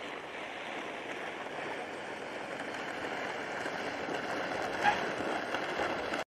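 Toyota LandCruiser driving on the test track: steady tyre and engine noise that grows slowly louder as it approaches, with a brief sharp sound about five seconds in.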